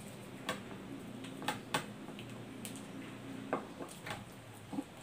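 Close-up eating sounds of a person chewing lechon bread, with irregular sharp mouth clicks and smacks scattered through, over a faint low hum.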